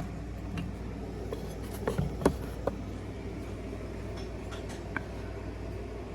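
A few light clicks and knocks of small ceramic figurines being handled, a cluster about two seconds in and one more near five seconds, over a steady low hum.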